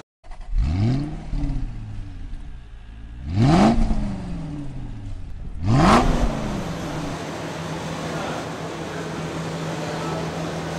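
A car engine starts about half a second in and flares up, then is revved twice in quick blips that rise and fall away. After that comes a steady hum.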